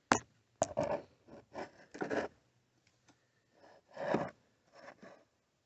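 Irregular scrapes and clicks as a thick metal dash bracket is worked into place behind a pickup's dash, rubbing against the plastic dash frame. The loudest scrape comes about four seconds in.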